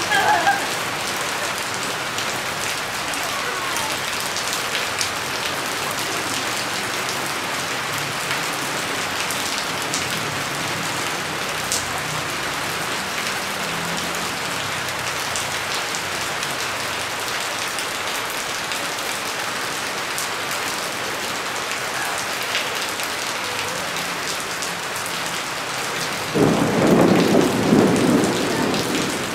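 Steady rain falling on a wet concrete terrace and into its puddles, with scattered drips. Near the end a rumble of thunder rises over the rain for about three seconds.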